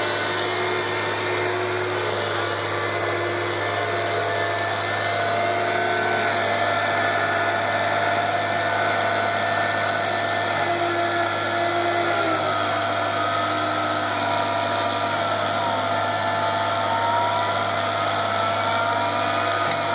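Farm tractor's engine running under load, driving a mill that is grinding dry corn stover: a steady, loud machine drone with whining tones that waver slightly in pitch.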